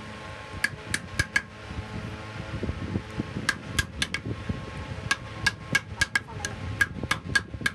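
A hammer tapping on a small wooden frame: quick, sharp taps in three bursts, with the last burst the longest at about a dozen taps. Each tap has a brief metallic ring.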